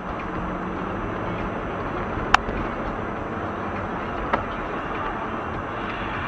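Steady road and engine noise inside a moving car, picked up by a dashcam, with two sharp clicks about two seconds apart, the first louder.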